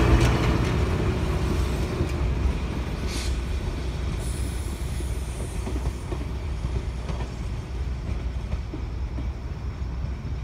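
Passenger railroad coaches rolling away down the track: a steady low rumble of steel wheels on rail that slowly fades as the train recedes, with a sharp click about three seconds in.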